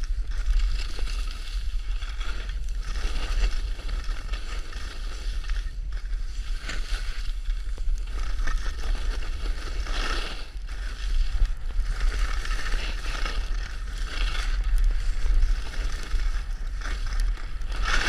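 Skis sliding and scraping over snow during a downhill run, with wind buffeting the camera microphone in a constant low rumble. The scraping hiss swells and fades every few seconds as the skier turns.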